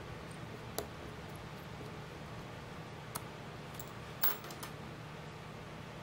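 A few light, sharp clicks from a small screwdriver working a tiny screw on a potentiometer fitted into a 3D-printed plastic bracket, over a steady low hiss. The clicks come singly about a second in and again around three seconds, then as a short cluster a little after four seconds.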